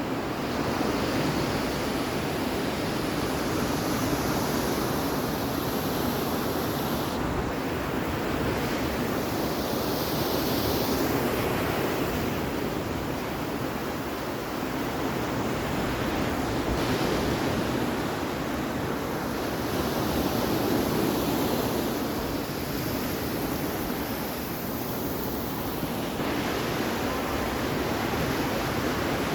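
Ocean surf washing onto a beach: a steady rushing noise that swells and eases gently.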